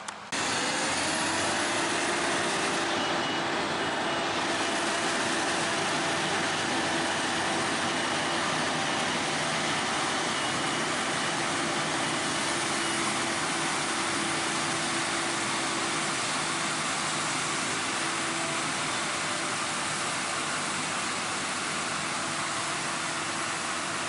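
Claas Lexion 740TT tracked combine running steadily while harvesting soybeans: a constant engine hum under a broad rushing machine noise.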